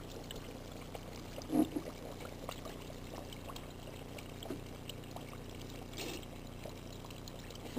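Hot oil bubbling and sizzling steadily in an electric deep fryer around a batter-coated block of instant ramen, with one brief louder low sound about one and a half seconds in.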